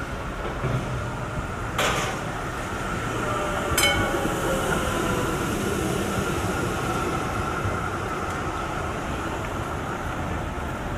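Melbourne street tram passing close by, running along its rails with a steady rumble and a constant whine. Two sharp knocks come about two and four seconds in, and a faint falling whine follows the second.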